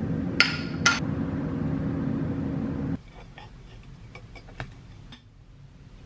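A glass jar clinks twice, sharp and ringing, over a steady low hum. About three seconds in, this gives way to quieter scraping and light tapping of a knife and fork on a ceramic plate as toast is cut.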